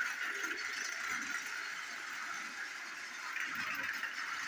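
Plarail EH500 toy train's small battery motor and gearbox running with a steady whine, its wheels rattling over the plastic track, the rattle swelling now and then.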